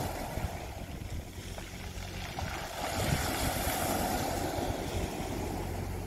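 Small sea waves breaking and washing over a pebble shore, one wash swelling about three seconds in. A low steady hum runs underneath.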